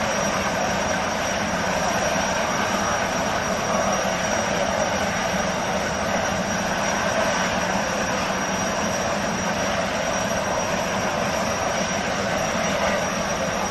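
Jetfoil's gas turbines running as it pulls away under water-jet propulsion: a steady jet-like rush with a thin, high, steady whine over it.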